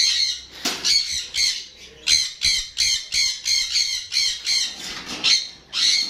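A flock of caged parrots squawking, short harsh calls coming about three times a second.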